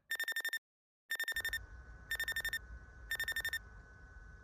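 Electronic alarm beeping: four quick bursts of rapid high beeps, about one burst a second.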